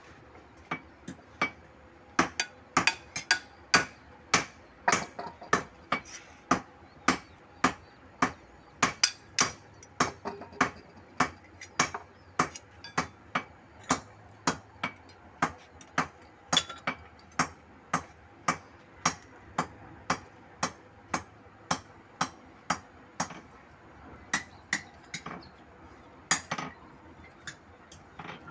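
Repeated hammer blows on steel at a bench vise while fitting a bolo blade, about two sharp, ringing strikes a second, a few lighter taps at first.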